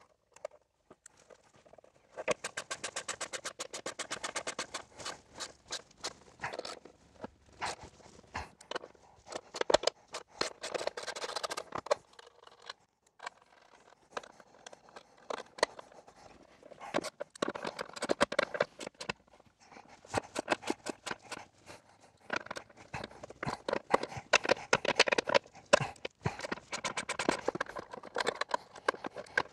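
Socket ratchet clicking in long runs of rapid clicks as a bolt is turned down to compress a nutsert into sheet metal, with a break around the middle.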